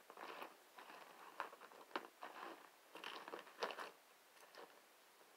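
Faint rustling and a few light clicks of handling, stopping about four seconds in.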